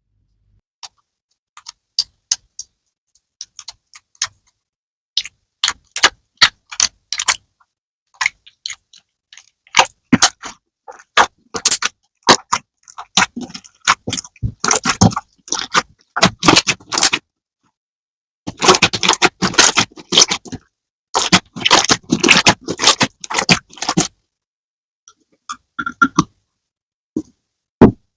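Slime being squeezed and worked by hand, making quick runs of sticky clicks and crackling pops in bursts, with short pauses between.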